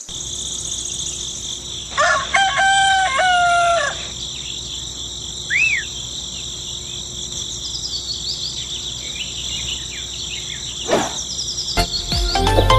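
A rooster crows once, about two seconds in, over a steady high-pitched drone of insects; a bird gives a short chirp soon after, and music comes in near the end.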